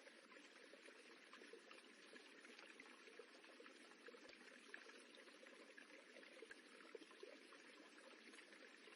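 Faint running, rippling water: a steady trickling wash with many small splashes.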